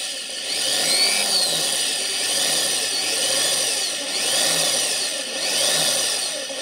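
Electric drill running as a small bit bores a pilot hole into the broken-off end of a car's wiper pivot shaft. The motor's whine rises and falls in pitch every second or so as the drill speeds up and eases off. This is the first step in opening the shaft out for a 6 mm tapped thread.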